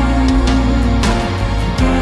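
Cinematic song with a sustained low melody and a few sharp percussive hits.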